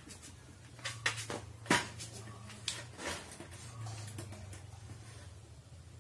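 Scattered taps and knocks from sandal footsteps on a concrete floor and an LED par light fixture being handled and set down, about half a dozen in the first three seconds, the sharpest just under two seconds in. A low steady hum lies underneath.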